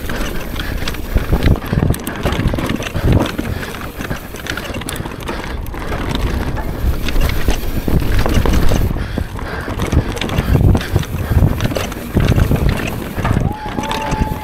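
Wind buffeting the microphone over the rattle and thuds of a mountain bike descending a rough downhill course at speed. A brief high squeal sounds near the end.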